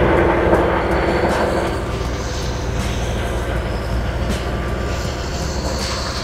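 Heavy farm machinery engines running steadily, with a dense clattering rattle over the first couple of seconds that then dies down.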